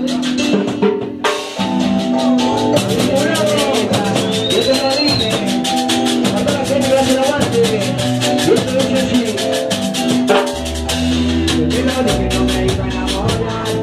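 Live Latin cumbia band music, loud, with fast steady percussion ticks and sustained keyboard-like notes. A deep bass line comes in about ten seconds in.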